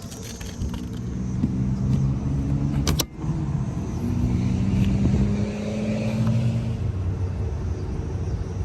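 Polestar car running with a steady low rumble and hum, and one sharp click about three seconds in.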